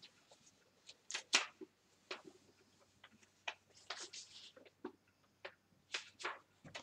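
Pages of a large bound book being turned by hand: a series of short papery rustles and flips, the loudest a little over a second in.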